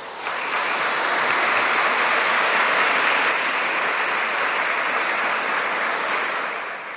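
Audience applauding. The clapping builds over about the first second, holds steady, and starts to fade near the end.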